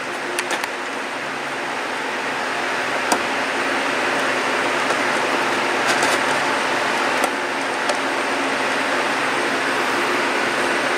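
Steady hum with hiss, broken by a few faint clicks.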